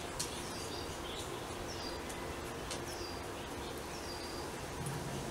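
A bird calling repeatedly, about once a second: each call a short, sharp high note that slides down in pitch and levels off.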